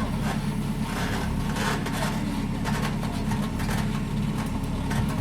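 An engine running steadily at a constant speed, with scattered scrapes and knocks over it.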